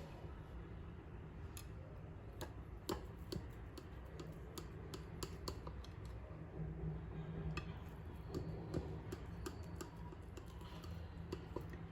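Irregular light clicks and taps, a few a second and uneven, over a low steady hum; typical of kitchen utensils and dishes being handled.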